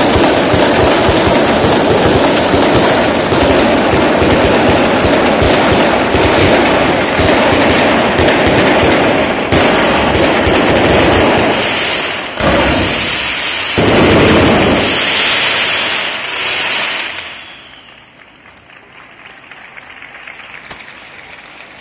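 A fireworks castillo going off in a continuous barrage of rapid bangs and crackles, with several long hissing bursts in the second half. The barrage stops about seventeen seconds in, leaving only a faint background noise.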